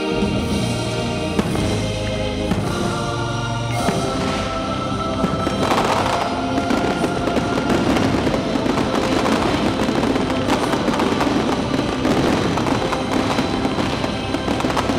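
Fireworks crackling and popping in a dense, rapid stream over the finale music. The crackle builds about five seconds in as the music's held chords recede beneath it.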